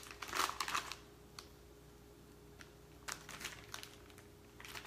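Plastic packaging of sliced ham crinkling as slices are pulled out, in three short bursts: near the start, a little after three seconds in, and at the end.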